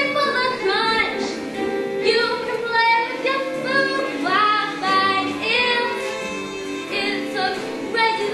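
Children's voices singing a musical-theatre number over instrumental accompaniment.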